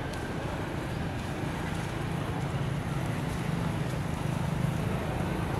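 A low, steady engine hum with outdoor background noise, growing slightly louder about a second and a half in.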